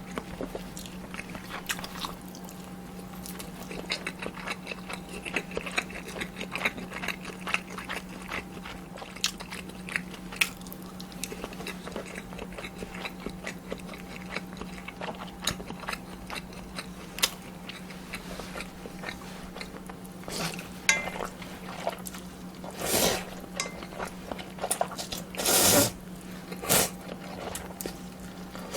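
Close-miked eating of kimchi ramen and dumplings: soft chewing and small mouth clicks throughout, with several louder rushes of noise, each about half a second, in the last several seconds. A steady low hum runs underneath.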